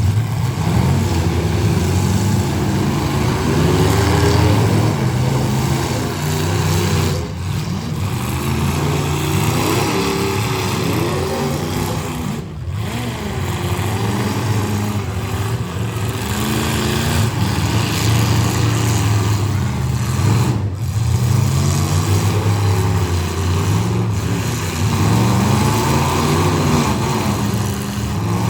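Demolition derby cars' engines running and revving, several at once, their pitch repeatedly rising and falling.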